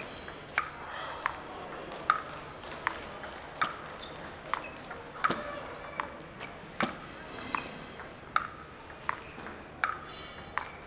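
Table tennis ball hit back and forth in a long rally: a sharp click of ball on paddle and table about every three-quarters of a second.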